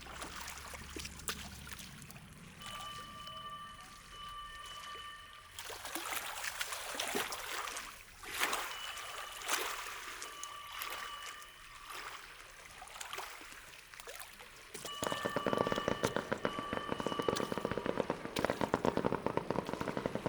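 Fireworks crackling: scattered sharp pops and sizzling crackles that become a dense, louder crackle about three-quarters of the way through. A steady high tone comes and goes over it.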